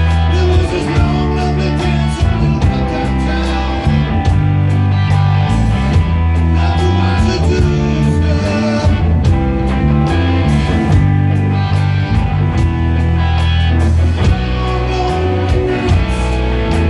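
Rock band playing live: electric guitars, bass guitar and drums in a steady rock groove.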